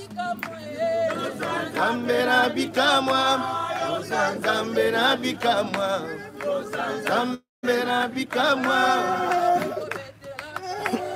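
A group of mourners singing a hymn together unaccompanied, several voices overlapping. The sound cuts out for a moment about seven seconds in.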